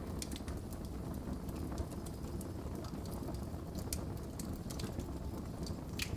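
Wood fire burning in a fireplace: a steady low rumble of the flames with irregular sharp crackles and pops from the burning logs, the loudest crackle near the end.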